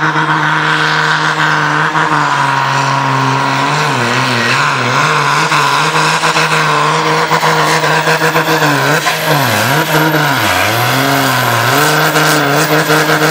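A tractor-pulling tractor's diesel engine at full throttle, dragging the weight sled down the track. The pitch holds steady at first, then sags and recovers several times in the second half as the engine bogs under the load.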